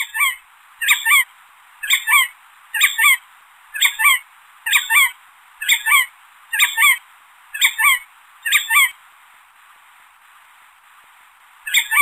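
Jerdon's courser calling: a double-noted call repeated about once a second, ten times, then a pause of about three seconds and one more call near the end, over a steady background hiss.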